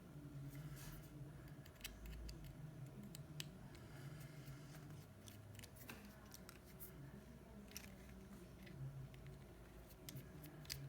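Faint, scattered small clicks and taps of hand tools working on a smartphone's parts during a screen repair, over a steady low hum.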